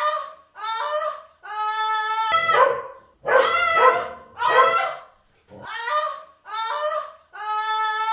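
Puppy whining in a run of short, high, wavering cries, about one a second.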